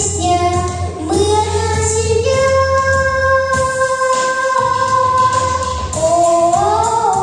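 Voices singing a song over instrumental accompaniment, with one long held note through the middle before the melody moves up again near the end.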